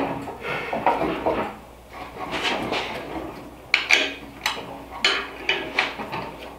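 Metal hardware clinking and knocking as a chassis-mount rear wing's brackets are bolted up by hand, with a few sharp clicks about four to five seconds in.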